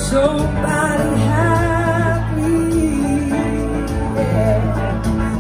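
Live blues-rock band playing: electric guitars and drums under a wavering lead melody line with vibrato, heard from the audience through a phone microphone.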